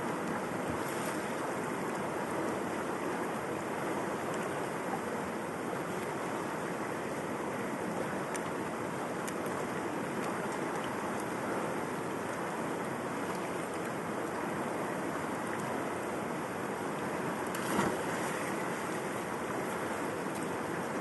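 River water flowing, a steady rushing noise, with a brief louder surge near the end.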